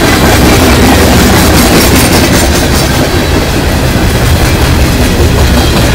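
Freight train tank cars rolling past: a loud, steady rumble of steel wheels on the rails.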